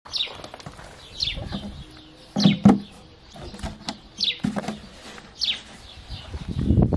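A bird calling over and over with a short falling note, roughly once a second. Mixed with it are hollow knocks and scrapes of an empty plastic jug being handled; the loudest pair of knocks comes a little before the middle and another near the end.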